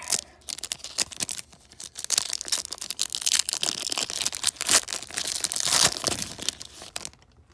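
Foil wrapper of an O-Pee-Chee Platinum hockey card pack being crinkled and torn open by hand: a dense run of sharp crackles and rips, busiest in the middle, that stops shortly before the end.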